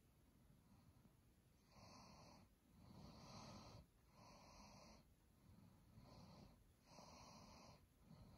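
Near silence: faint room tone with soft hiss coming and going.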